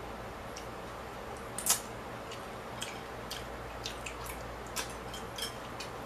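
Eating sounds from a person eating noodles with chopsticks: chewing and wet mouth sounds with scattered small clicks, the loudest about two seconds in, over a steady low hum.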